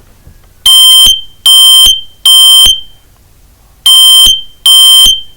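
Kidde smoke alarm sounding on test: very loud, shrill beeps at one steady high pitch, in two groups of three with a pause between the groups. This is the temporal-three pattern that a smoke alarm uses to signal evacuation.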